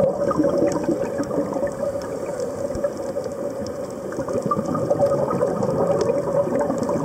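Underwater ambience picked up by a diving camera: bubbling, crackling water noise with a steady hum underneath, easing a little in the middle and swelling again.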